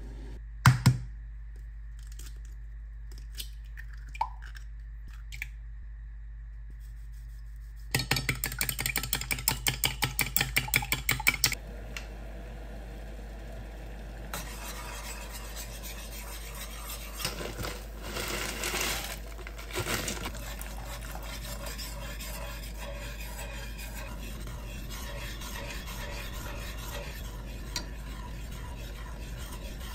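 Kitchen utensil sounds: a knock about a second in, then about three and a half seconds of rapid, even clicking, about six strokes a second, of a fork beating eggs in a bowl. After that a metal spoon scrapes and clinks against a stainless saucepan of boiling water, with the pot's steady hiss running on.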